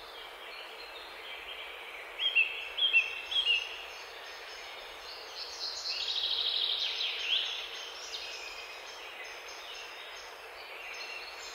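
Birds chirping and trilling over a steady background hiss: a quick run of short chirps about two seconds in and a rapid trill around six seconds in.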